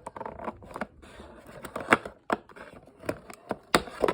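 Toy packaging being handled: plastic and cardboard rustling with irregular sharp clicks and snaps, the loudest about two seconds in.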